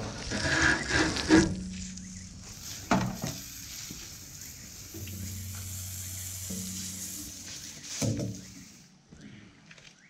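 Garden hose spraying water onto a burnt-out microwave oven's hot metal, hissing and sizzling. It is loudest in the first second and a half, with short bursts again about three and eight seconds in.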